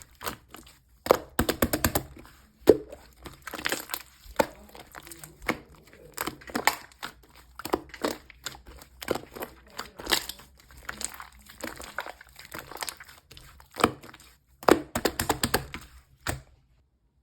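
Slime being squished and folded by hand, making repeated clusters of sharp crackling pops and clicks about once a second. It stops suddenly near the end.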